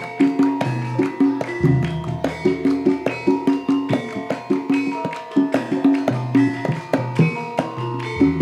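Javanese gamelan playing an instrumental passage: struck metallophones ringing in a quick, even run of notes over drum strokes, with deep low notes coming in about a second and a half in and again near the end.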